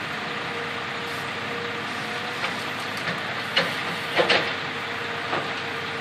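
Diesel engines of an excavator and a dump truck running steadily while the excavator loads soil into the truck, with a few sharp clanks and knocks near the middle.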